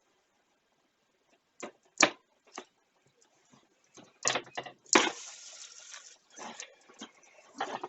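Cardboard box and packaging being opened and handled: scattered taps and knocks, with about a second of rustling and scraping about five seconds in.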